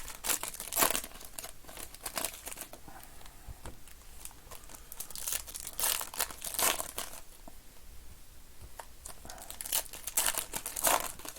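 Trading card pack wrappers being torn open and crumpled: several bursts of crinkling and tearing, loudest near the start, about six to seven seconds in, and near the end.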